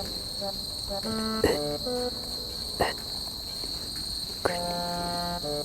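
Steady high-pitched chirring of crickets and other autumn insects, with a few sharp clicks, and soft background music notes.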